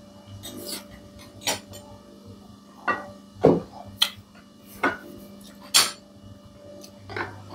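Eating at a table: about eight short, scattered clicks and clinks of dishes and cutlery against a plate and bowls, over a faint steady hum.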